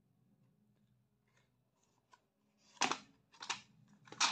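Cardboard medicine cartons handled and shifted about, giving three brief rustling scrapes in the second half.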